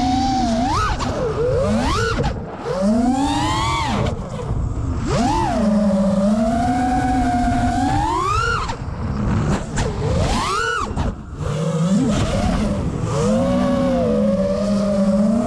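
FPV freestyle quadcopter's brushless motors and propellers whining, the pitch sweeping sharply up and back down about six times as the throttle is punched and released, settling into a steady hum between punches.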